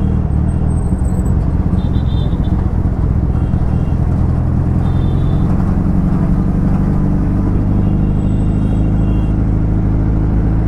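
Suzuki Hayabusa's inline-four engine running steadily while riding on the road, a loud low drone with wind rush. The revs begin to climb near the end.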